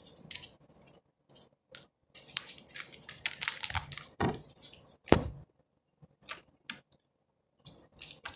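Small repair parts and thin plastic being handled: scattered rustles and sharp clicks, busiest from about two to five seconds in, then a few sparse clicks.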